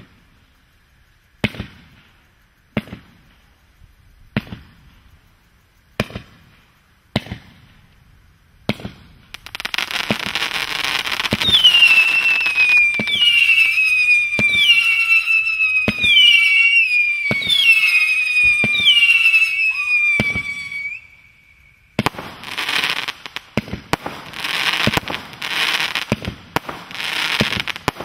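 Bandito firework firing: first a series of single shots about every second and a half, then a stretch of crackling laced with a run of whistles, each falling in pitch, and then dense crackling bursts near the end.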